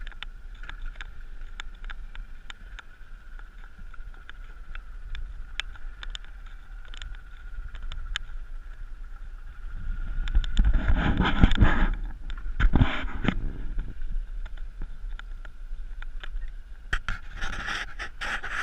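Small sailing boats being handled alongside a harbour wall: a steady low hum under frequent small knocks and scrapes of gear and hull, with louder rushing bursts about ten seconds in, briefly again a little later, and near the end.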